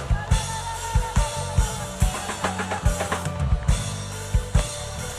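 Church band music with a live drum kit: kick drum and snare hits in a steady rhythm over bass and sustained keyboard or guitar chords.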